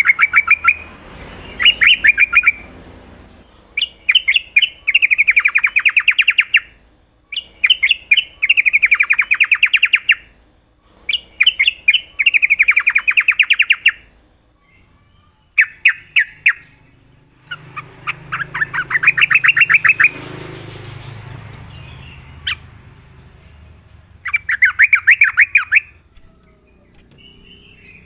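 Sooty-headed bulbul singing in about seven loud bouts, each a rapid run of repeated notes lasting one to three seconds, with short pauses between.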